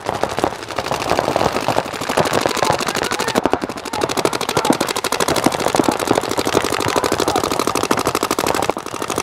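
Several paintball markers firing at once in rapid streams, a dense run of fast pops that keeps up throughout and eases off briefly near the end.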